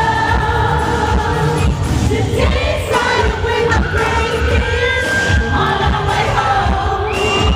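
Live old-school freestyle music: singing over a steady pounding dance beat, with crowd noise beneath.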